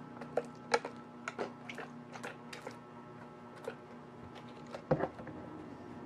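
Light clicks and taps of things being handled on a hard desktop, with a louder knock about five seconds in as a plastic bottle of rubbing alcohol is set down on the desk. A faint low hum runs underneath.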